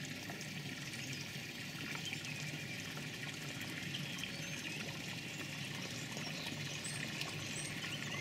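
Water trickling steadily down a garden stream course into a pond.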